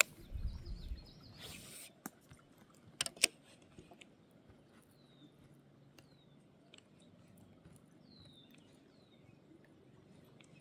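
Rustling handling noise and a few sharp clicks in the first few seconds, then a bird calling with short, high chirps that fall in pitch, about five of them.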